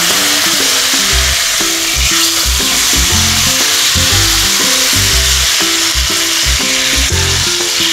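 Shukto sizzling steadily in hot oil tempered with bay leaf and panch phoron. A light background music track, a melody over a bass line, plays underneath.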